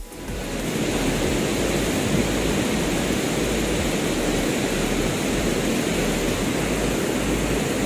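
Steady rushing of the swollen Parvati river, churning over rocks in muddy rapids.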